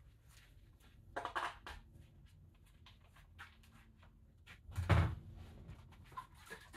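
Things being handled and set down on a workbench: scattered light knocks, a short clatter about a second in, and a louder thump about five seconds in, over a faint low hum.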